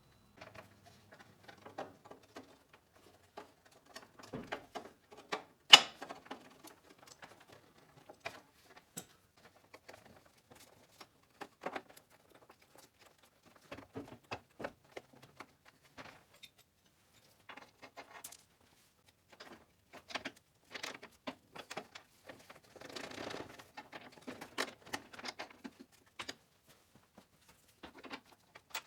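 Scattered light clicks, taps and rustling of hand tools and mower parts being handled, irregular with no steady rhythm. One sharp metallic click about six seconds in is the loudest, and there is a denser patch of rustling shortly after twenty seconds.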